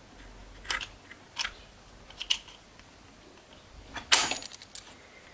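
Light clicks and knocks from the parts of a 1968 MGC heater fan motor handled during reassembly as its end cap is fitted back over the armature: three separate taps in the first couple of seconds, then a louder rattling clatter about four seconds in.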